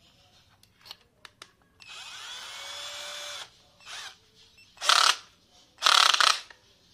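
Xtra Power two-speed cordless drill's motor spinning up with a rising whine and running steadily for under two seconds. Then it gives three short bursts, the last two loudest, while the keyless chuck is gripped by hand to tighten it onto a drill bit.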